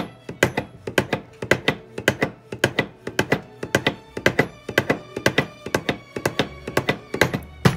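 Rieger tip profiler worked rapidly back and forth over a bassoon reed, its carriage knocking about three times a second as the blade shaves cane from the reed tip.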